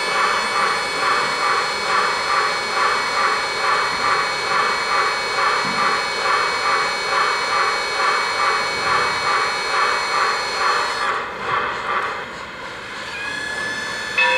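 O-gauge model Norfolk & Western Class J steam locomotive's onboard sound system playing a rhythmic steam chuff, about three chuffs a second, over a steady hiss. It fades out about eleven seconds in.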